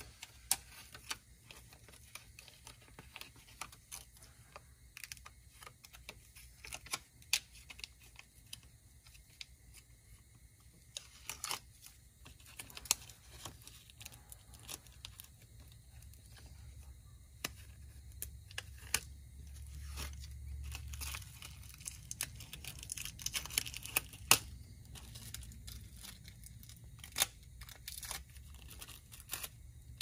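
Faint, scattered small clicks and crinkling from handling a round tire-repair patch and its plastic backing, over a low steady hum.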